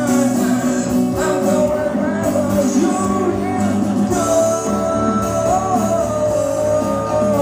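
A man singing long, held phrases into a microphone over a strummed acoustic guitar and an electric guitar, live band music.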